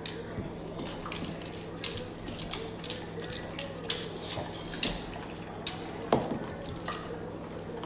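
Several dogs shifting on a hardwood floor: irregular light clicks and taps of claws, over a steady low hum.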